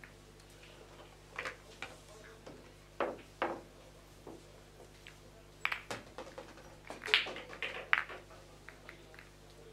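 Pool balls clacking against one another as they are taken from the pockets and gathered to be racked: irregular sharp knocks, the loudest pair a couple of seconds before the end.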